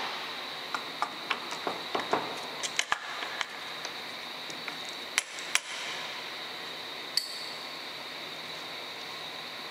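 Metal gear parts clinking and tapping against the engine case and steel workbench as a gear is fitted onto the engine, a string of sharp clinks with two louder ones a little past the middle. Underneath runs the steady noise of the shop air conditioner with a high whine, loud enough to be noticed.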